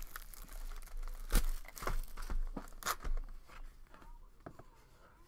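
A trading card pack wrapper being torn open and crinkled, with cardboard box handling: several sharp rips in the first three seconds, then quieter rustling.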